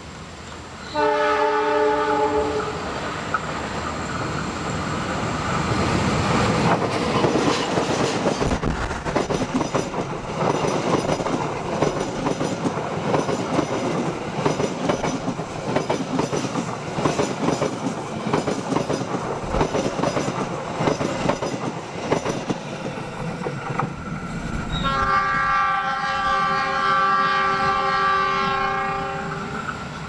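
A train horn sounds a short multi-tone blast about a second in. A passenger train then rushes past close by, its wheels clattering over the rail joints. Near the end a multi-tone train horn sounds again, held for about five seconds.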